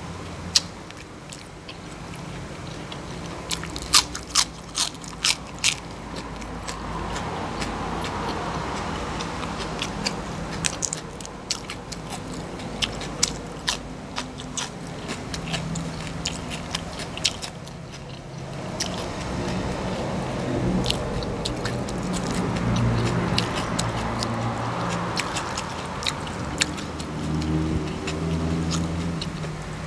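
Close mouth sounds of a person eating: chewing, with crisp crunches of bites into raw vegetables that come in clusters about four seconds in and again around eleven to fifteen seconds.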